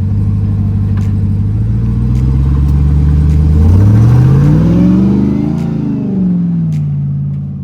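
Ram TRX's supercharged V8 engine running under load at a steady speed, then revving up and easing back down in the second half.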